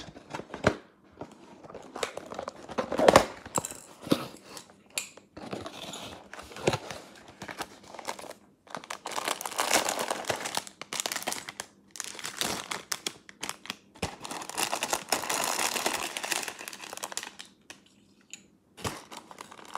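Clear plastic wrapping and bags of bricks crinkling and tearing as a building-brick kit's box is unwrapped by hand, in irregular bursts with a sharper crackle about three seconds in.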